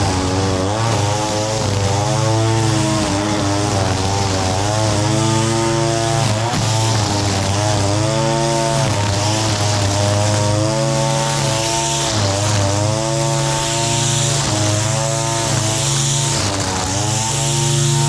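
Echo SRM-225 two-stroke string trimmer running at high throttle, its engine pitch rising and dipping about once a second as the spinning line cuts into the grass.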